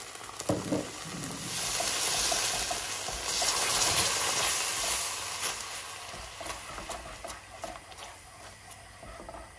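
Barbecue sauce and soy sauce hissing and sizzling in a hot wok. The hiss is strongest in the first half and dies down over the last few seconds, with a few light clicks.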